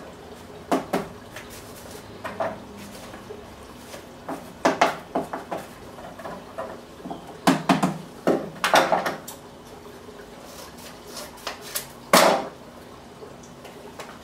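Scattered clinks, taps and rustles of small objects handled on a wooden counter: a glass shot glass set down, metal scissors picked up and put down, and a paper spore envelope being cut and opened. The loudest clatter comes near the end.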